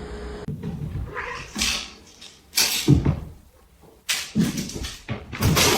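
A pet cat making several short, harsh sounds in a row, with no clear meow among them.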